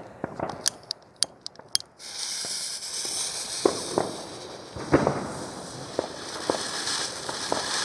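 Comet 'Color Fontäne' ground fountain firework: a few sharp clicks, then about two seconds in it catches and sprays with a steady hiss, broken by occasional sharp pops.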